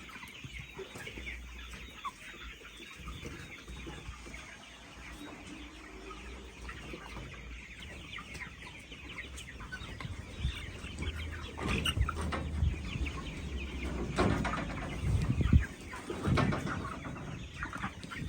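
A flock of chickens clucking and cheeping steadily, with several louder knocks and bumps in the second half.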